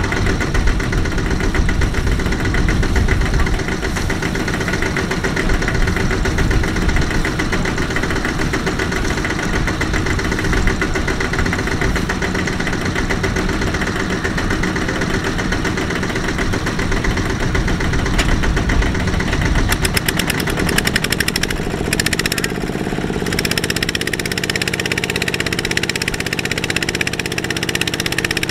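Single-cylinder diesel engine of a Kubota RT120 walking tractor running steadily while hauling a loaded trailer through mud. Its note shifts about twenty seconds in.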